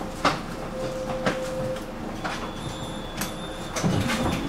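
Tram running along the track: a steady hum under a faint steady tone, with sharp knocks and rattles at irregular spacing, about one a second, from the wheels and car body.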